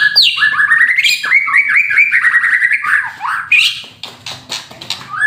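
White-rumped shama (murai batu), a moulting male, singing loudly: a fast run of quick, repeated down-slurred notes in the rattling 'kretekan' style, with a few higher whistles mixed in.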